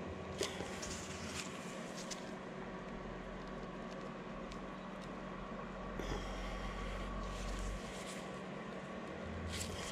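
A 5/8-inch, 18-threads-per-inch hand tap cutting threads into a freshly drilled hole in the steel crankshaft end of a Wisconsin VH4D engine, turned by a tap wrench. A few sharp metallic clicks come as it turns, over a steady hum.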